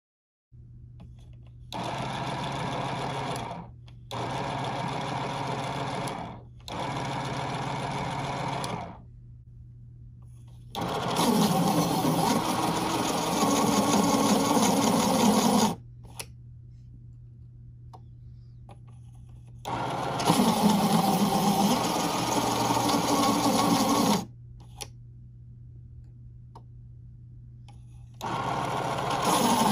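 Westcott iPoint Evolution Axis electric pencil sharpener's motor running in bursts. There are three short runs of about two seconds each, then three longer, louder runs of about four seconds as a pencil is pushed into the cutter and sharpened. A low steady hum sits between the runs.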